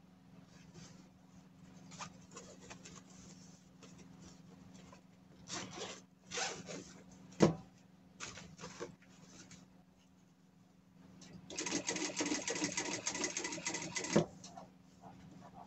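Sewing machine stitching fabric in one fast, even run of about two and a half seconds near the end, stopping with a click. Before it come quieter rustles of fabric being handled and a few clicks, one of them sharp about halfway through.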